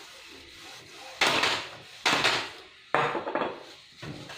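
Hands working inside an open HP 2515 inkjet printer: three short clattering, scraping noises about a second apart as plastic parts and a spray can are handled.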